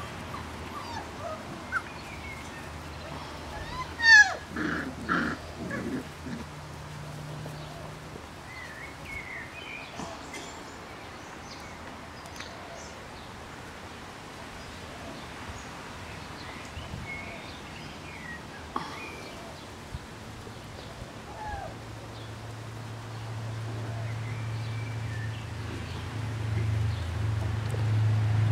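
Young puppies yelping and squealing at play, the loudest a sharp falling yelp about four seconds in, followed by a few more short cries. A low steady hum grows louder over the last several seconds.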